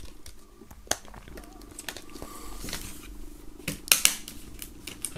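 Small plastic clicks and light handling noise as a CD is prised off the centre hub of a digipack's clear plastic tray, with sharper clicks a little under four seconds in. A faint low hum runs underneath from about a second and a half in.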